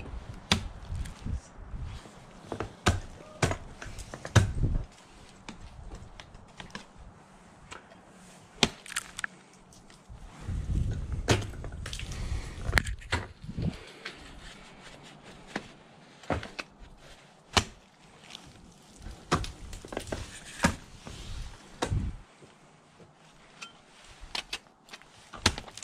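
Ice tools and crampons striking a frozen waterfall: an irregular string of sharp chopping thunks as the picks and front points are swung and kicked into the ice, with some low rumbling between strikes.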